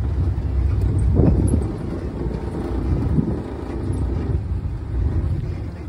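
Safari vehicle driving along a dirt track: a low engine and road rumble with wind on the microphone, heaviest in the first couple of seconds.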